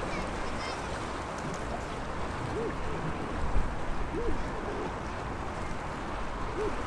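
Small sea waves washing and sloshing steadily against the shore, with a few louder splashes near the middle. Three short, faint squeaks are heard along the way.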